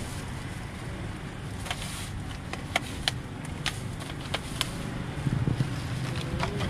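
Clear plastic takeaway food boxes being handled and snapped on a steel cart counter: several sharp plastic clicks, scattered and irregular, over a steady low background rumble.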